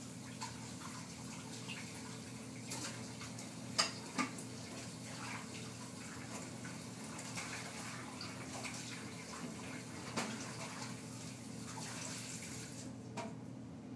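Pet turtle feeding in shallow water: small splashes and scattered clicks, the two sharpest about four seconds in, over a steady low hum.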